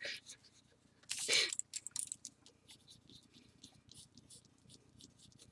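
Pencil and pen strokes scratching faintly and irregularly on paper, with one brief vocal sound about a second in.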